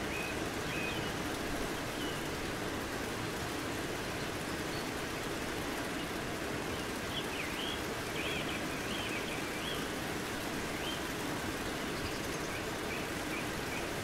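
Steady rain falling, an even hiss and patter. Small birds chirp faintly over it: a few short chirps in the first second, a quick run of chirps about halfway through, and a few more near the end.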